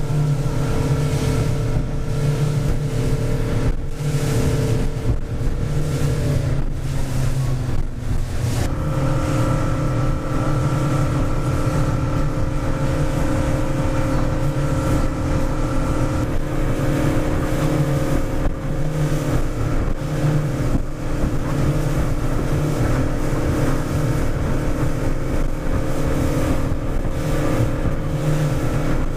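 A small motorboat's engine running steadily under way, with water rushing past the hull and wind on the microphone. The engine note shifts slightly about seven or eight seconds in.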